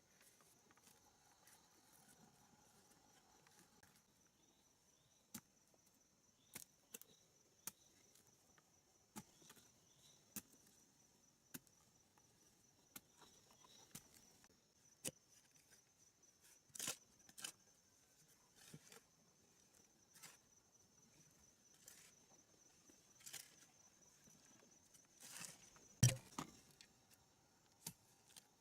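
Faint, steady, high-pitched insect chirring, with scattered sharp clicks and knocks over it, the loudest near the end.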